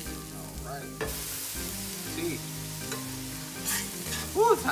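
Smash-burger patties sizzling on a hot flat-top griddle. Near the end, a short, loud, pitched squeal rising and falling as the steel spatula blade scrapes across the griddle, sliding under a patty to flip it.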